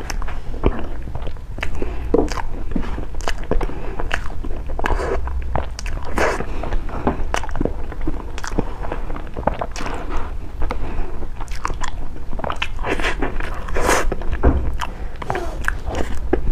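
Close-miked eating of soft cake: steady wet chewing and mouth sounds with many small, irregular lip-smacks and clicks.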